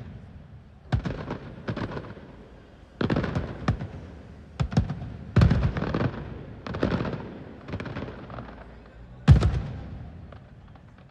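Aerial fireworks shells bursting overhead: a string of sharp booms, some close together in pairs, each trailing off in an echoing rumble. The biggest bang comes about nine seconds in.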